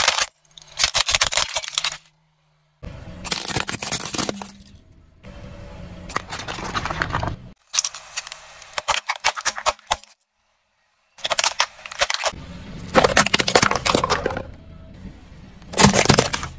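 A car tyre rolling over and crushing small plastic objects, including a plastic toy airplane and liquid-filled plastic syringes: plastic cracking and crunching in several separate bursts, each cut off abruptly.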